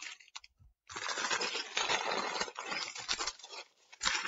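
Sealed plastic bags of Lego pieces being rustled and shuffled together, the bags crinkling and the bricks inside clicking against each other. It begins about a second in, lasts around two and a half seconds, then comes once more as a short burst near the end.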